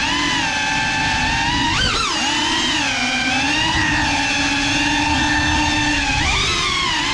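GEPRC CineLog35 cinewhoop's four brushless motors and propellers whining. The pitch swoops up and back down with the throttle about two seconds in, holds nearly steady, then swoops again near the end, over a rushing hiss of prop wash.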